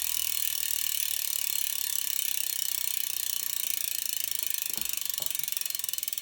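Hope RS4 rear hub's freehub clicking rapidly as the wheel freewheels, the pawls ratcheting in a fast, even buzz that slows a little toward the end as the wheel loses speed.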